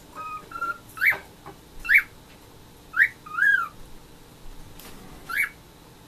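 Cockatiel whistling a string of short notes: a few brief steady chirps at first, then about five sharp whistles, each sliding up and back down in pitch.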